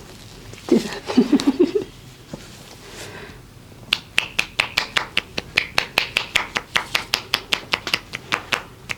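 Percussive massage strokes: hands striking the body in a fast, even run of sharp slaps, about six a second, starting about four seconds in and lasting some five seconds. About a second in there is a brief pitched sound.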